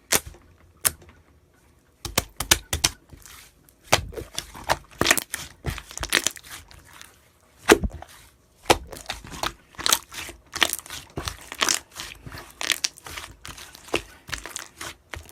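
Clay slime being squished and pressed by hand, giving irregular sticky pops, clicks and crackles. It is sparse for the first two seconds, then runs densely.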